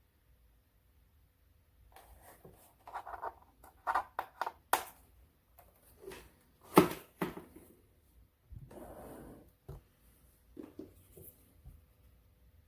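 Handling noises: a string of clicks, knocks and scraping, the loudest a sharp knock about seven seconds in, followed by a rushing sound lasting about a second.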